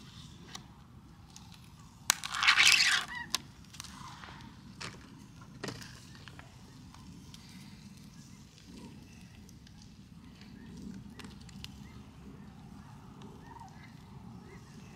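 Brats sizzling on a grill grate over a fire, with scattered sharp pops and crackles and one short, loud burst of crackling about two seconds in.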